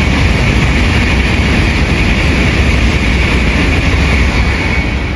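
An N700S Shinkansen passing through the station at speed on the through track: a loud steady rush of wheels and air with a deep rumble and a steady high whine, easing as the last car goes by near the end.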